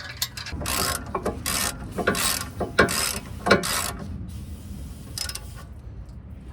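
Socket ratchet clicking in short back-and-forth strokes, about two a second, with a weaker stroke later, as a brake caliper bolt is run in during reinstallation.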